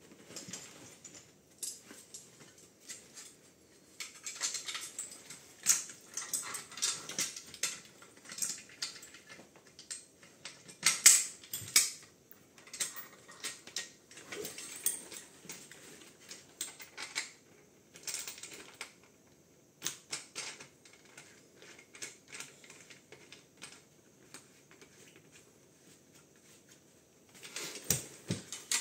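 Irregular clicking and clinking of metal fittings and buckles as a rebreather harness and its metal travel frame are handled and fastened together, with some rustling of straps. The clatter eases off for a few seconds near the end, then comes back in a short burst.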